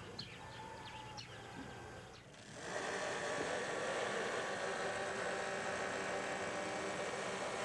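A steady machine hum with hiss sets in about two and a half seconds in. Before it there is a quieter stretch with a few faint, short, high chirps.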